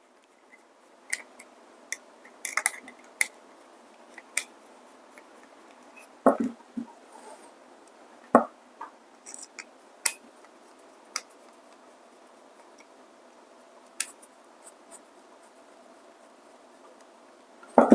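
Scattered light clicks and taps of a screwdriver and a small 3D-printed plastic declumper being handled and unscrewed from a coffee grinder's exit chute, with a few sharper knocks about six and eight seconds in.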